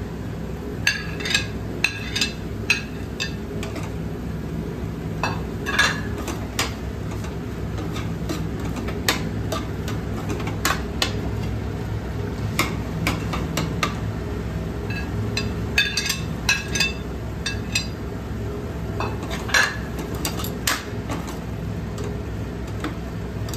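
Steel spatula stirring crumbled paneer into masala in a stainless steel kadai, with irregular sharp clinks and knocks of metal on metal every second or so. A steady low hum runs underneath.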